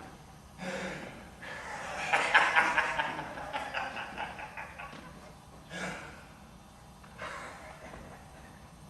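A person's breathy, wordless vocal sounds, in several bursts, loudest and longest about two to three seconds in.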